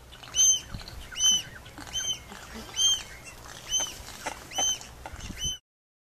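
Swallow-tailed gull giving a short, high, squeaky call over and over, about once a second, each note rising and then falling in pitch. The calling stops abruptly near the end.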